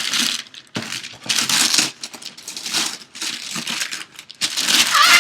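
Paper crinkling and rustling in several irregular bursts as a gift is unwrapped by hand.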